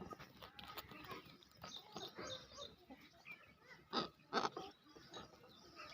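Domestic farmyard birds and animals calling: scattered short, soft calls, with two louder calls close together about four seconds in.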